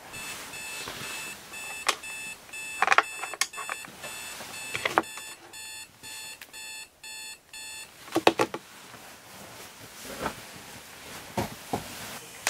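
Smartphone alarm beeping in repeated short bursts of a high tone, which stops about eight seconds in. A few knocks and rustles of bedding follow.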